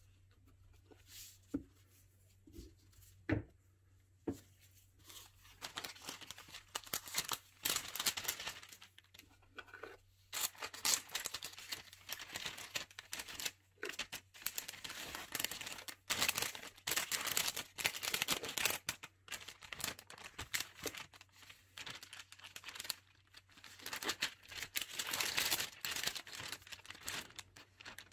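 A few light taps, then a thin metallic foil sheet crinkling and crackling as it is lifted and bent by hand, in dense bursts with short pauses.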